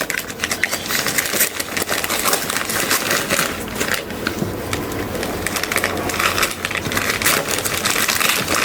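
Gift wrapping being torn open and crinkled by hand: a steady run of rustling, crackling paper as a present is unwrapped.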